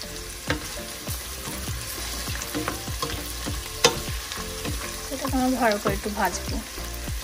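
Chicken and whole spices frying in oil with a steady sizzle, while a spatula stirs them, scraping and knocking against the pot many times.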